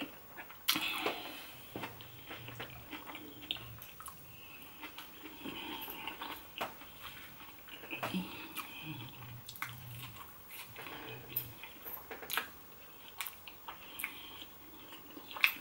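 A person chewing fried fish, chips and salad: wet mouth sounds and soft crunches with scattered sharp clicks, and a few short low hums.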